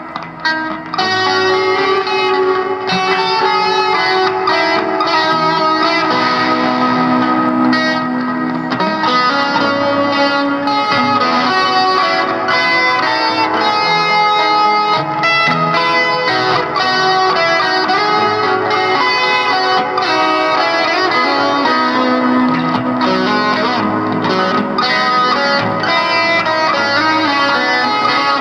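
Music led by an electric guitar played through effects, with a busy run of changing notes.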